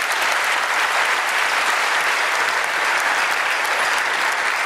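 Audience applauding: dense, steady clapping from a large crowd in a hall.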